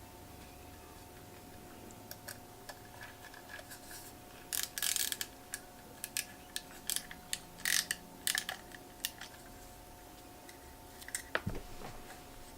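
Small sharp clicks and scrapes of a precision screwdriver and tiny Torx screws being handled and fitted into a laptop drive, in a busy cluster from about five to nine seconds in and a few more near the end, over a faint steady hum.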